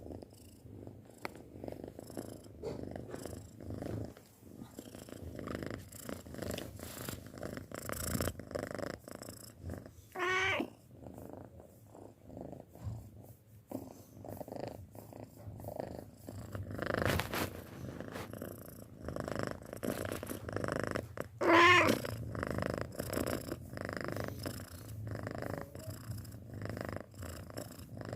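Six-month-old cat purring steadily, a low rhythmic rumble. It is broken twice by a short pitched call, about ten seconds and about twenty-two seconds in, and the second call is the loudest sound.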